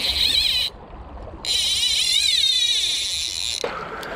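Fly reel drag zinging as a hooked steelhead pulls line off, in two runs: a short one at the start and a longer one of about two seconds, its pitch wavering with the speed of the fish.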